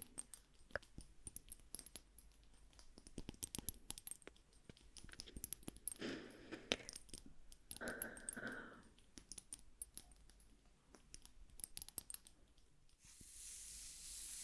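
Close-microphone ASMR trigger sounds: a quick, irregular stream of small crisp clicks and taps, with two soft breathy swishes about six and eight seconds in and a steady hiss starting near the end.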